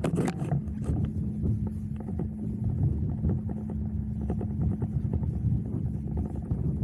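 Motor boat's engine running slowly with a steady hum, under an uneven low rumble of wind on the microphone.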